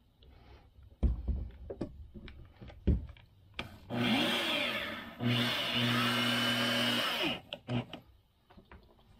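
Corded electric drill driving square-drive wood screws into a boat's wooden seat: the motor runs twice, about a second and then about two seconds, its pitch bending as it spins up and winds down. Before the runs come a couple of sharp thumps and clicks from handling the drill and screws.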